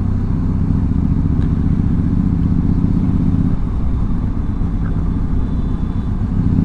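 Benelli TRK 502X motorcycle's parallel-twin engine running as the bike rides along, a steady low drone. The engine note eases off about halfway through and picks up again near the end.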